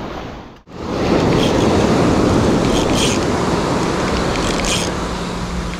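Surf breaking and washing up a pebbly beach: a steady rush of waves that starts after a brief break about half a second in, with a few faint clicks over it.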